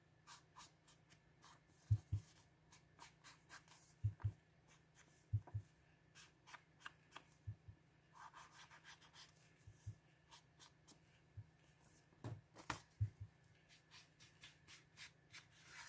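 Hands working paper on a craft table: scattered soft taps, rubbing and rustling, with a few dull knocks.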